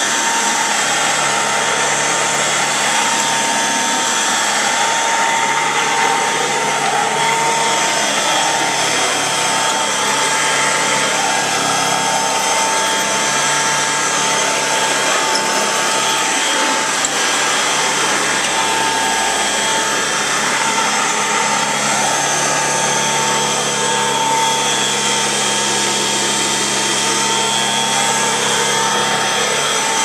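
1930s Kenmore Automatic upright vacuum cleaner running steadily over carpet, its motor giving a constant whine over an even rushing of air.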